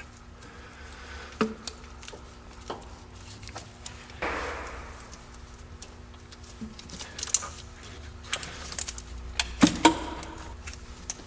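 Scattered clicks, taps and a brief scrape of a tool and hands working among the rubber hoses and clamps in a car's engine bay, with a few sharper clicks near the end, over a steady low background hum.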